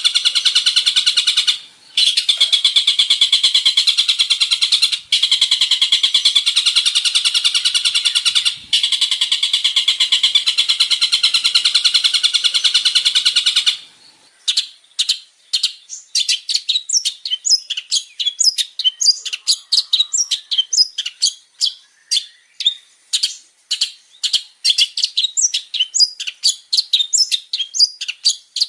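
Long-tailed shrike (cendet) singing a varied song. For about the first half it is a dense, rapid, buzzy high trill in long phrases broken by three short pauses; then it switches to a fast run of separate sharp chirps and whistles.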